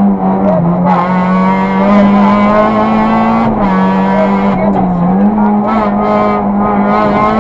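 Peugeot 206 RC Group N rally car's 2.0-litre four-cylinder engine heard from inside the cabin, running hard high in the rev range at full throttle. Its pitch dips briefly a few times and comes straight back up.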